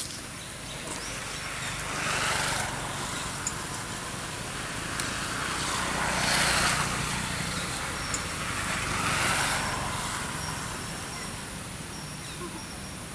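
Road traffic: three vehicles pass, about two, six and a half and nine seconds in, each a swell of tyre and engine noise that rises and fades, the middle one loudest, over a low steady hum.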